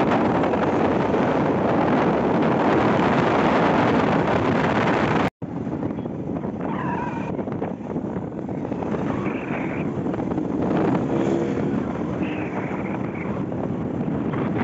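Wind buffeting the microphone over the road noise of a moving vehicle. About five seconds in the sound cuts out for an instant and returns quieter, with traffic noise and a few faint wavering high tones.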